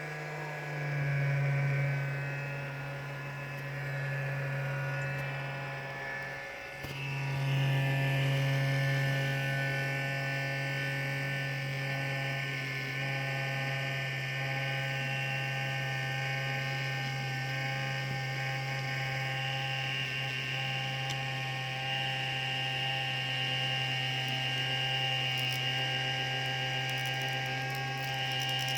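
Alienware m15 R3 laptop's cooling fan running with a steady hum and several high whining tones, which the owner suspects come from bad fan bearings. The hum dips briefly about six seconds in.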